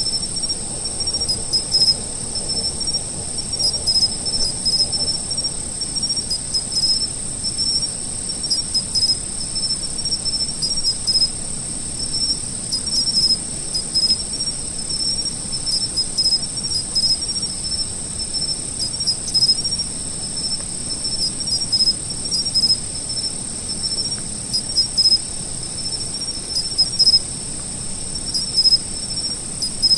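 Insects calling together: a steady, high-pitched trill runs on without a break, while a second insect chirps in irregular pulses at a lower pitch, with scattered sharp ticks.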